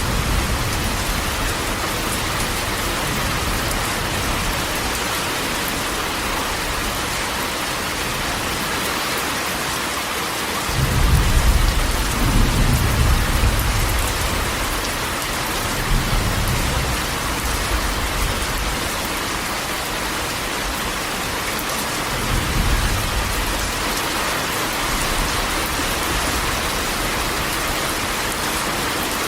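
Steady rain drumming on a corrugated metal roof, an even hiss throughout. Low rolls of thunder swell up three times, starting about a third of the way in.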